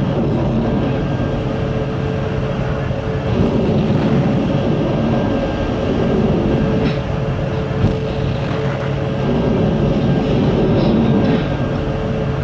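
Continuous loud rumbling with a steady machinery hum under it, swelling a few times as Kalibr cruise missiles launch from the sea and climb away. One sharp knock comes about eight seconds in.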